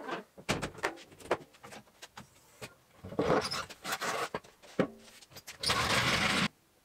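Workshop handling sounds around an Argo 8x8: a few knocks as its cover is shut, clatter as a floor jack is lowered, then the floor jack rolling across a concrete floor, a steady rattle of about a second near the end that cuts off abruptly.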